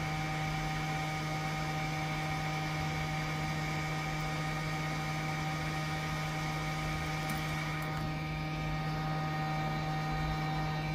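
Steady electrical hum and whine of bench equipment, several fixed tones over a light hiss. About eight seconds in, the higher hiss and whine drop away while the low hum carries on.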